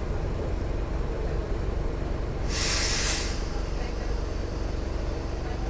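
Mercedes-Benz OF 1418 bus's diesel engine running steadily, with a short burst of compressed-air hiss from the bus's pneumatic system about two and a half seconds in, lasting under a second.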